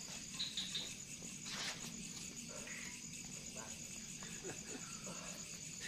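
Night insects chirring steadily, a high, fast-pulsing trill, with a single brief knock about one and a half seconds in.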